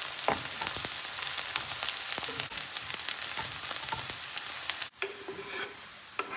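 Diced onions sizzling and crackling in hot oil in a frying pan, stirred with a metal spoon as they start to turn golden. The frying cuts off suddenly about five seconds in, followed by quieter scraping of a knife across a wooden cutting board.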